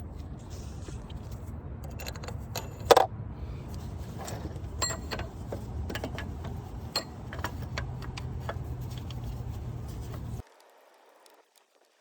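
Small metal parts and tools clinking and tapping during hand work on the engine, with one sharp ringing clink about three seconds in. A steady low background rumble runs underneath and cuts off suddenly about ten seconds in.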